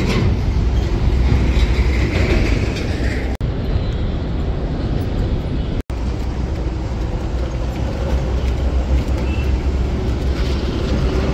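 Steady low rumble of road traffic, with two brief dropouts about three and a half and six seconds in.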